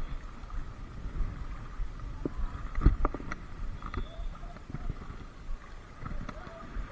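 Wind on the microphone and small waves lapping at a pebbly shoreline, with a quick cluster of clicks and knocks about three seconds in.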